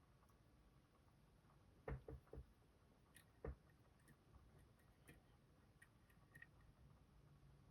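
Faint clicks and taps of a lock pick working the barrel pins of an Assa Guideline pin-tumbler lock under tension: a quick cluster of three about two seconds in, another sharp click a second later, and lighter ticks between.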